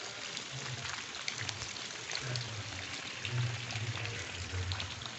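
Footsteps squelching through wet mud, about one step a second, over a steady wet hiss.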